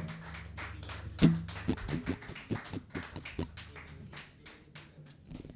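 Scattered hand claps from a small audience after a song ends, thinning out toward the end, over a steady low hum.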